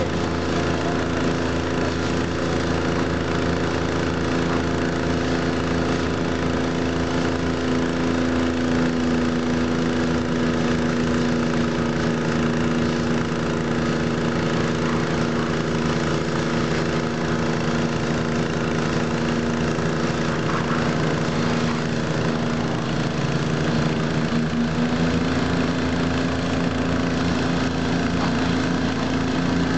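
Pressure washer running steadily while a rally car is sprayed down: a continuous motor hum with the hiss of the water jet, its pitch shifting slightly about three-quarters of the way through.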